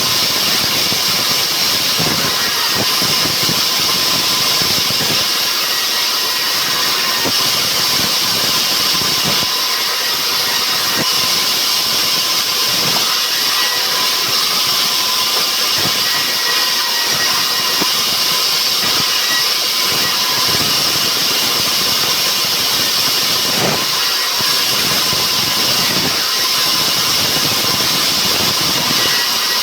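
Rubber wood sawmill saw running steadily under load: a loud, even, high hissing whine with a faint steady tone, and a few light ticks now and then.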